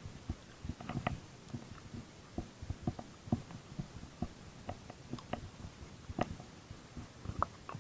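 Irregular soft clicks and low knocks from hands working a handline: the fishing line is handled and wound on a hand-held plastic spool.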